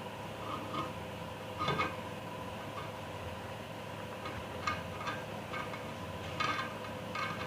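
Scattered small clicks and clinks of parts and wires being handled over a steady electrical hum.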